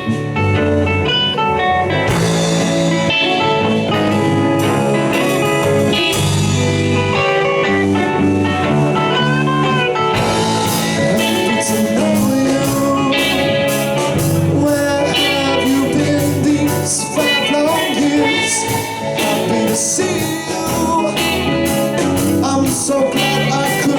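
Live psychedelic rock band playing the instrumental lead-in to a song, led by guitar; a steady beat comes in about ten seconds in.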